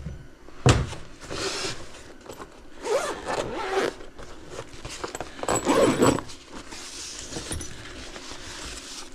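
Small metal drill bits rattling and clicking as they are handled and fitted into a drill chuck, in a few short spells, with a single knock under a second in.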